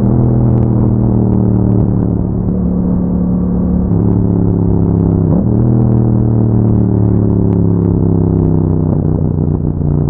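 Yamaha MT-07's 689 cc parallel-twin running through an Akrapovic exhaust as the bike is ridden. The engine note holds steady, changes pitch briefly around two, four and five and a half seconds in, then slowly falls through the second half as the bike eases off.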